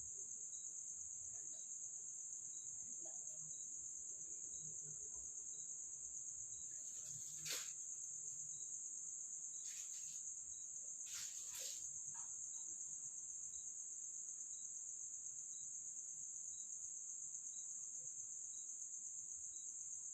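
Crickets chirring in one steady, high-pitched drone, faint, with a faint regular tick about twice a second. A sharp click comes about seven and a half seconds in, and two shorter scraping noises follow around ten and eleven and a half seconds.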